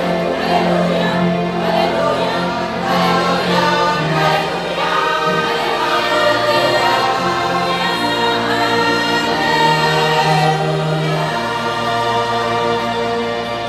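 Mixed choir of men's and women's voices singing a hymn in harmony, holding long notes and chords.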